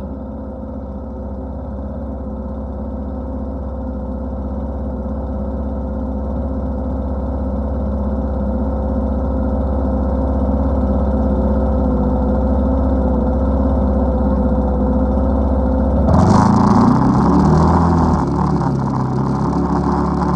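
ATV engine running steadily at low, even throttle, then opened up about four seconds from the end, getting louder and rougher.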